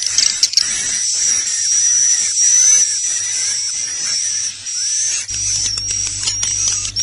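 Edible-nest swiftlets twittering: a dense stream of rapid, high-pitched chirps over a thin whistling tone. This is an 'inap' (roosting) swiftlet call recording of the kind played in swiftlet houses to draw the birds in to roost. A low steady hum joins about five seconds in.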